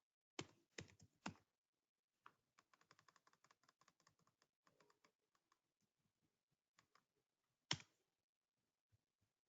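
Faint computer keyboard typing: three louder key clicks in the first second and a half, a quick run of light keystrokes from about two to five and a half seconds in, then one sharp click near the end.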